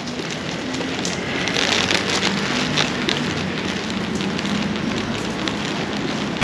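Rain falling and pattering steadily on a surface, with many small ticks and a low steady hum underneath.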